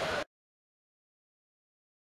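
Noisy background ambience cuts off abruptly about a quarter second in, leaving dead silence.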